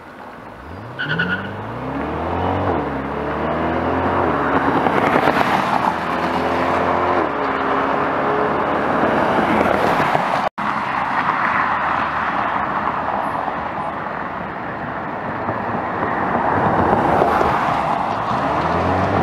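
Mid-engine Chevrolet Corvette prototype's V8 accelerating hard through the gears, its pitch climbing and dropping back at each upshift. The sound cuts out for an instant about ten seconds in, then another acceleration run follows, rising again near the end.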